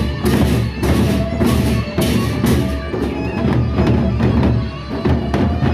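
Sasak gendang beleq ensemble playing: large double-headed barrel drums beaten with sticks under crashing hand cymbals. The cymbal clashes come about twice a second, then quicker and lighter about halfway through.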